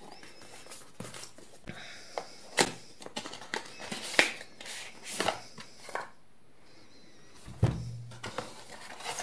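Cardboard packaging being handled: a printed paper sleeve slid off a white inner box, giving scattered rustles, scrapes and small sharp clicks. The sound goes quiet for a moment, then a brief low knock follows near the end.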